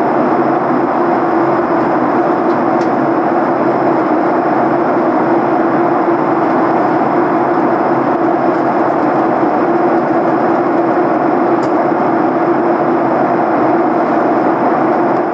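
Steady cabin noise of a Boeing 737 airliner in flight: the even rush of engines and airflow, with a low hum under it, heard from inside the cabin.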